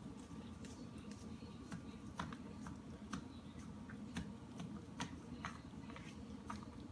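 Dog licking and lapping ice cream: irregular wet clicks and smacks, two or three a second, over a low steady hum.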